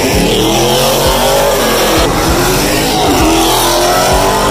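Car engines revving hard and accelerating away, the engine note climbing and dropping several times over a few seconds.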